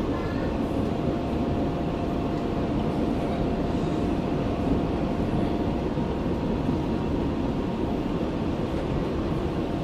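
Berlin U-Bahn F79 train standing at the platform with its auxiliary equipment running: a steady hum and rush, with a faint steady whine that fades out about six seconds in.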